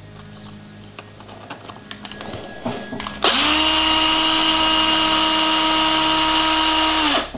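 Electric screwdriver backing out a screw from an RC crawler's gearbox case: a steady motor whine that starts suddenly about three seconds in and stops just before the end. Before it come a few light clicks of small parts being handled.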